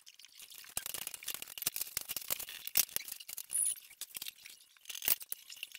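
Many light, quick clicks and rattles of small items such as coffee pods and their boxes being handled and set down on a glass-topped table.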